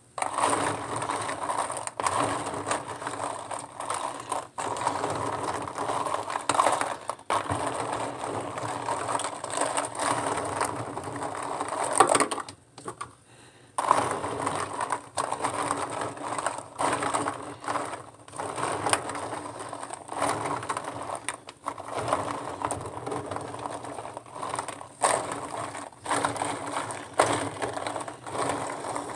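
Empty clear plastic lip gloss tubes being stirred and rubbed by a gloved hand in a tub of soapy water: a continuous jumble of plastic clattering and clicking with water sloshing. It stops for about a second and a half near the middle.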